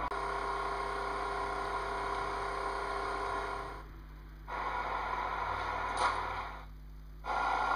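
Small motor running with a steady hum and hiss, dropping away briefly twice.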